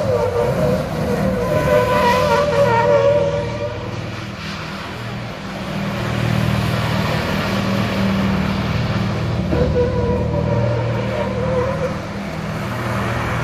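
Scania 144's V8 turbo diesel held at high revs in a burnout, its rear tyres spinning on the asphalt. Its loudness swells and eases, and a wavering tyre squeal comes in near the start and again about ten seconds in.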